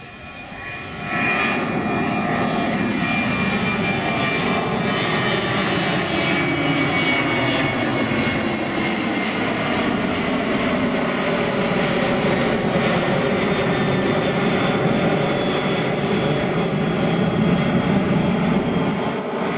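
Boeing 737 jet airliner climbing out after take-off: loud, steady jet engine noise that swells in about a second in, with tones sliding down in pitch as it passes.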